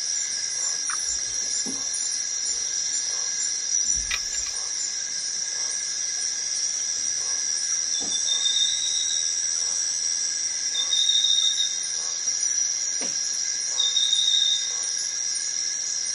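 Steady high-pitched chorus of forest insects, with a short shrill call repeating about every three seconds from about halfway through. A few faint clicks and knocks come from a portable gas stove and its canister being handled.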